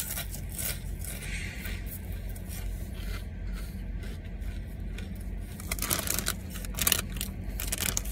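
Crunching chew of a mouthful of ridged potato chips, a run of short crisp crunches over a steady low hum. About six seconds in, the plastic chip bag crinkles as it is handled.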